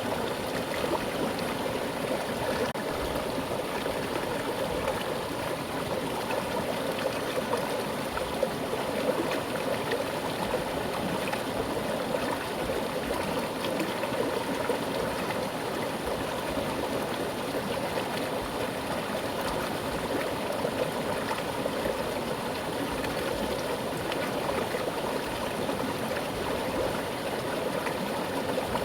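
Mountain stream flowing steadily with a strong current, an even rushing and gurgling of water over rocks.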